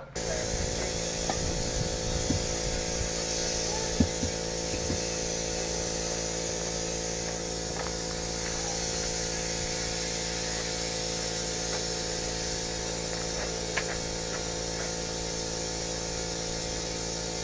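An air compressor starts abruptly and runs steadily with a hum and a hiss, with a couple of short knocks along the way.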